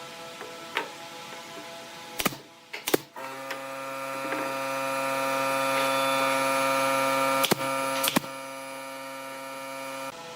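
A machine hum, likely a power tool's electric motor, running steadily and growing louder from about three seconds in to near the end, with two sharp clicks just before it starts and two more while it runs.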